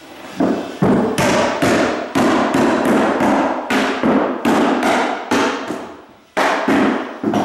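Hammer driving the nails of carpet tack strip into a wooden subfloor: quick, sharp strikes about three a second, with a brief pause near the end before three more blows.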